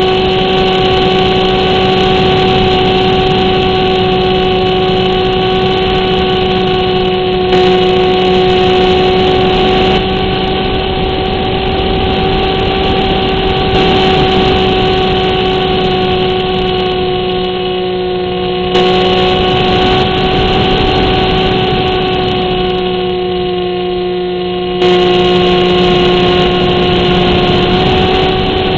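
Versa RC plane's motor and propeller running at a steady throttle in flight: a steady whine with overtones over a wind rush, picked up by a camera riding on the plane.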